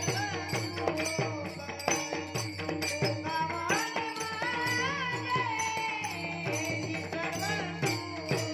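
Warkari devotional bhajan: a boy sings a long, bending melodic line over a steady drone, with small brass hand cymbals (taal) struck in a steady rhythm.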